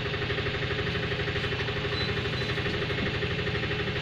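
An engine running steadily at idle, with an even, rapid pulsing and a steady hum.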